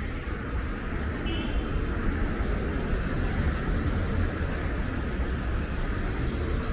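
Busy city street ambience: a steady rumble of passing traffic, with a brief high-pitched tone about a second and a half in.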